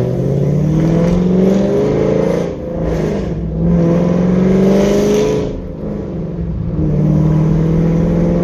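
Chevrolet Camaro SS V8, fitted with aftermarket headers, accelerating hard. The engine rises in pitch through a gear, drops at an upshift about two and a half seconds in and again near six seconds, then climbs again.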